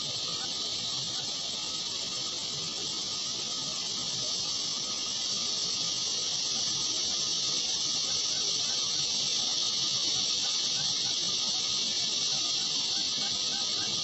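A steady high-pitched hiss, a little louder from about five seconds in.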